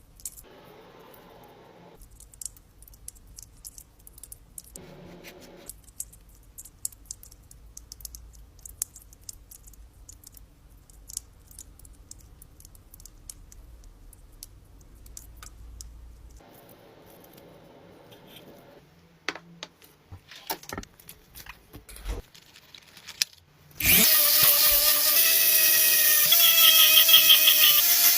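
Small clicks, taps and metal jangling from hand-tool work on a car, then a power tool starts near the end and runs loud with a wavering whine.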